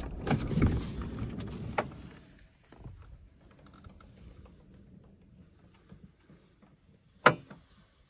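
Knocks and mechanical rattling for about two seconds after a loud knock at the start, fading to faint scattered ticks, then a single sharp click about seven seconds in.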